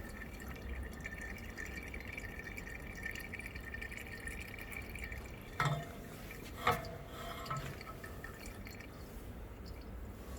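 Hydraulic oil dripping from a front strut housing with its shock insert pulled out. Two sharp knocks about a second apart come just past the middle.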